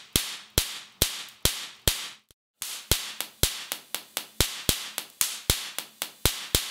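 Homemade Marx generator firing: each discharge through its chain of spark gaps and the output arc of up to 300,000 volts gives a sharp bang. The bangs come about twice a second, stop briefly a little over two seconds in, then start again faster, about four a second.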